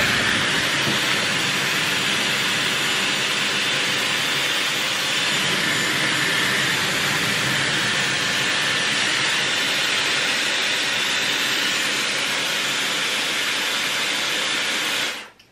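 Dyson Airwrap hair styler running with its 40 mm curling barrel attached: a steady rush of air with a faint high motor whine. It cuts off abruptly near the end.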